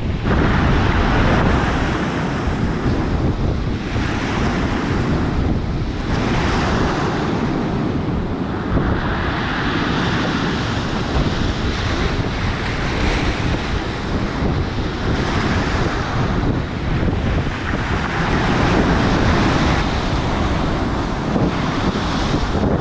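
Storm surf breaking on the shore, waves surging in and washing back every few seconds, with strong wind buffeting the microphone in a steady low rumble.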